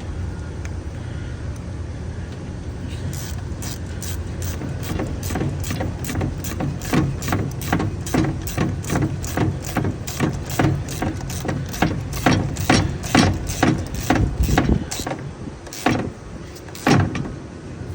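Ratchet wrench clicking in quick, even strokes, about three a second, as the negative battery cable bolt is snugged down. A pause, then two more clicks near the end, over a steady low hum.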